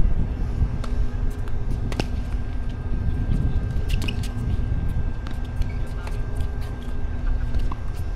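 Tennis ball struck by rackets in a rally: a sharp pop about two seconds in, a cluster of hits around four seconds, and fainter pops after, over a steady low rumble and a faint hum.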